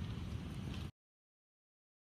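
Faint low background rumble and hiss that cuts off abruptly to dead silence about a second in, where the recording ends.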